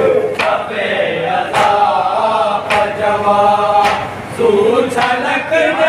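Men chanting a nauha, a Shia mourning lament, together, over sharp slaps about once a second from rhythmic chest-beating (matam).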